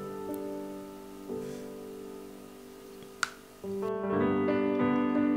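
Background piano music, soft at first and fuller from about four seconds in, with one brief sharp click about three seconds in.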